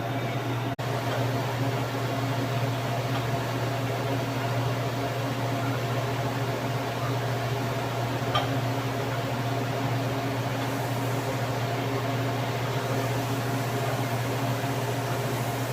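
TIG welding arc running steadily on pipe, a continuous buzzing hiss with a single brief crackle about halfway through.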